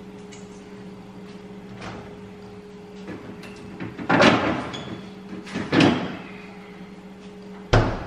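Fridge freezer door pulled open about four seconds in, more handling noise near six seconds, then the door shut with a sharp thud near the end, over a steady low hum.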